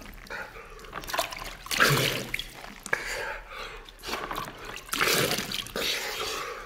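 Water splashed onto a face from cupped hands, again and again about once a second, with dripping and trickling in between.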